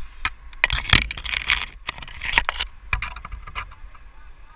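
Scraping and clinking of a tree climber's metal rigging hardware and rope against pine branches, in irregular noisy bursts with sharp clicks.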